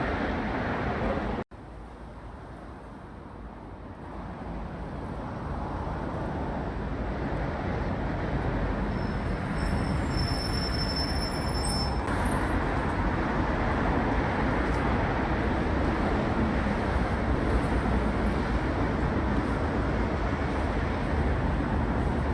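Steady outdoor traffic and street noise, cut off briefly about a second and a half in, then slowly growing louder.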